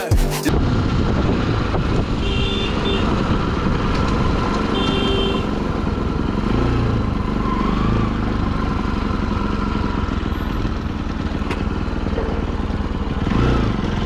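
Motorcycle engine running with wind and road noise as the bike rides along and slows to a stop. Two short high beeps sound about two and five seconds in.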